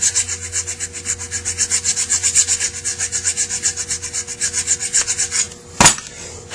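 Flat file rasping quickly back and forth, about five strokes a second, across the fuel filter plug's gasket seat on a Zenith 28 carburetor body, flattening it and taking off residue so the plug will not leak. The filing stops about five and a half seconds in, and a single sharp knock follows.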